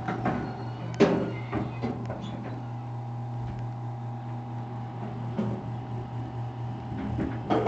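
Otis Series 1 elevator car descending with a steady hum, jolted by a sharp bump about a second in. The bump is a sign of the worn, rough-riding old car.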